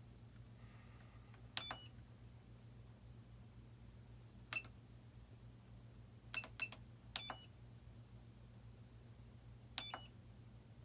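Short electronic key beeps from a Dynam 8-channel RC transmitter as its buttons are pressed to scroll through the model menu, six irregularly spaced beeps in all. A low steady hum runs underneath.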